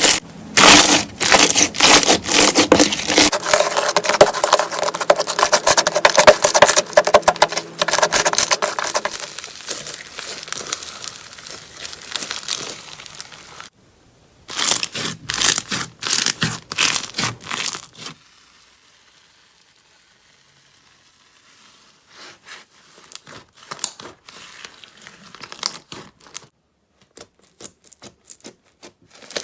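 Slime being squeezed and poked, making dense crackling and popping clicks. The clicking stops for a few seconds near the middle, then returns sparser and quieter.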